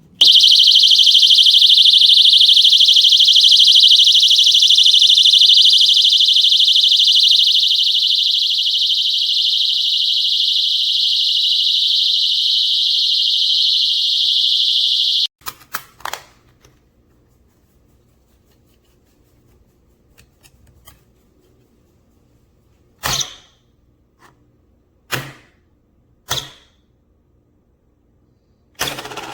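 Window alarm siren sounding a loud, steady, high-pitched shriek for about fifteen seconds, then cutting off suddenly. A few sharp clicks and knocks follow.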